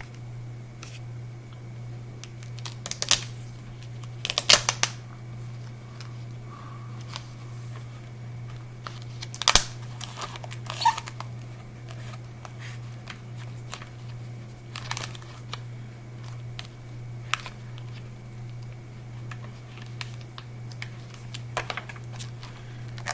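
Scattered crinkles, clicks and taps of hands working at a laptop's screen cable: sacrificial tape being peeled off and the display connector being worked loose. The bursts are short and spread out, over a steady low hum.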